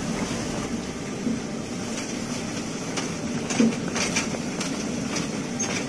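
Daikon radish washing machine running, its motor-driven brush rollers turning under a water spray, giving a steady mechanical noise. A few short sharp knocks come in the second half.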